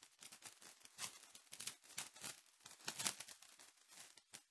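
Foil wrapper of a trading card pack being torn open and crinkled by hand: a quick run of irregular crackles and rips that stops just before the end.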